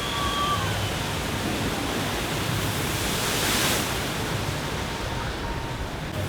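Steady rush of water from a river rapids ride, swelling briefly about three and a half seconds in.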